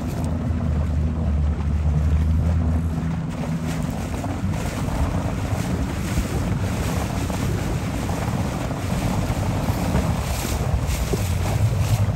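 Wind buffeting the microphone over choppy water splashing and lapping. A low steady motor hum is heard during the first three seconds and comes back near the end.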